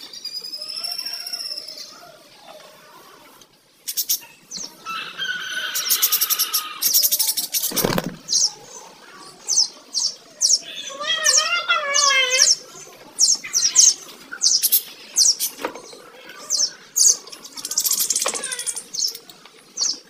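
Budgerigars chattering: many short, sharp, high chirps, with a wavering warble in the middle. There is one short low thump about eight seconds in.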